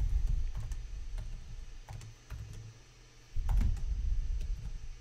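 Typing on a computer keyboard: scattered key clicks as a terminal command is entered. A low rumble sits under them at the start and again for about a second past the middle.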